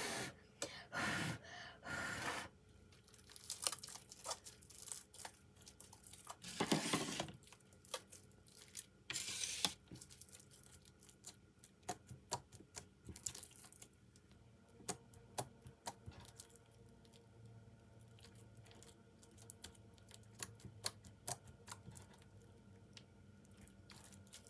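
Homemade slime being stretched, squeezed and kneaded by hand: sticky tearing and squishing sounds, a few louder ones in the first ten seconds, then many small crackles and pops.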